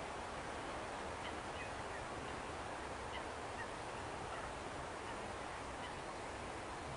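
Faint, scattered short bird calls over a steady rushing noise.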